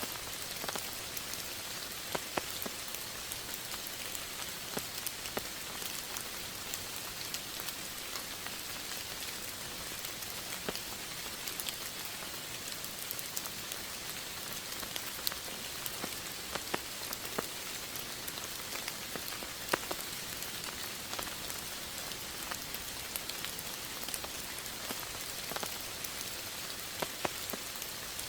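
Steady rain falling: a constant hiss with scattered sharper drops striking a surface.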